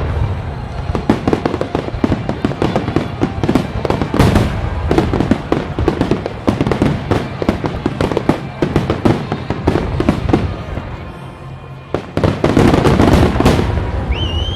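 Aerial fireworks bursting in quick succession: a dense rattle of sharp cracks, with heavier booms about four seconds in and again near the end.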